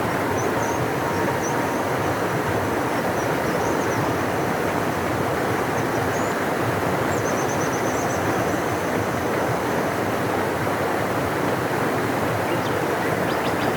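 A large river rushing steadily, a deep even roar of water, with faint high bird chirps over it.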